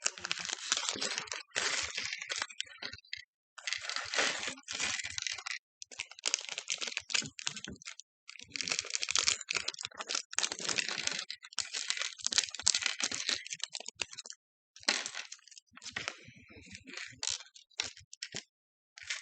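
Loose plastic LEGO pieces clattering and rattling against each other as a hand rummages through a pile of them, in quick clicking runs broken by short pauses.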